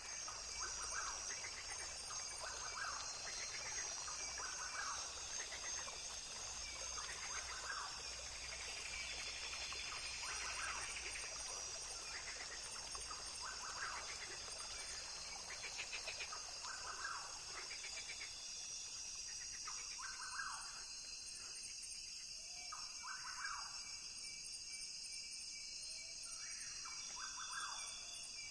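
Rainforest ambience: a steady high-pitched insect chorus, with short animal calls repeating every couple of seconds beneath it.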